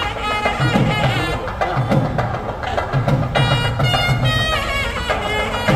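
Traditional wedding music: rapid drumming under a high melody of held notes that slide from one pitch to the next, with voices faintly beneath.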